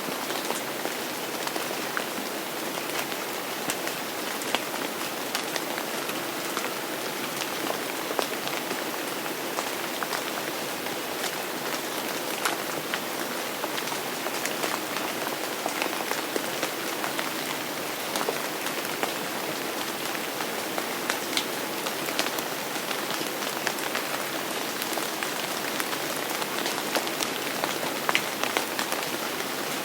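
Steady rain falling on a surface, an even hiss dotted with many sharp individual drop ticks.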